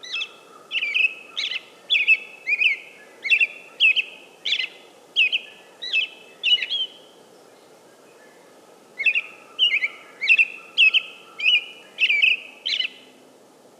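American robin singing: two runs of short, clear phrases, about two a second, with a pause of about two seconds between them, over faint background noise.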